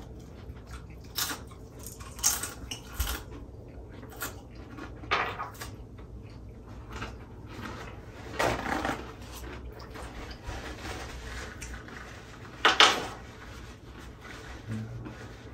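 Eating at a table: utensils clinking and scraping against dishes, with a handful of short sharp clatters and bites spaced a second or more apart, the loudest near the end.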